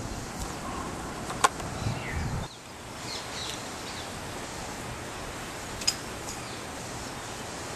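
Steady outdoor background hiss with a few faint, short chirps and two sharp clicks. The low background drops away about two and a half seconds in.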